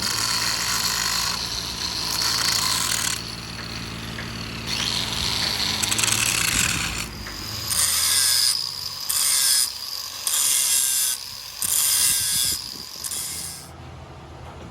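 Machine working metal: a high-pitched grinding hiss with a steady whistle in it, cutting in and out in repeated bursts of about a second. A low motor hum runs underneath during the first half.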